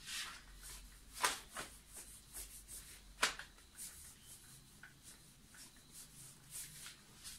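A whiteboard being wiped by hand: a series of short rubbing swipes, with a few sharper strokes about a second in and again about three seconds in.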